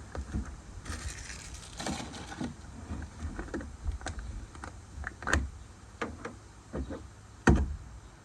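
Scattered clicks and knocks of tools and parts being handled, with a brief rustle about a second in and the loudest knock near the end.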